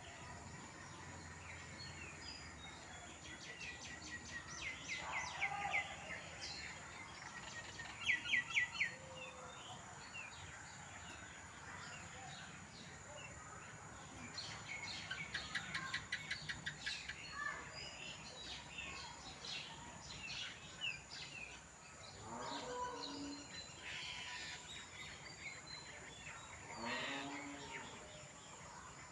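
Birds chirping and calling outdoors, with several quick trills of rapidly repeated short notes, the loudest about eight seconds in, over a faint steady background hiss.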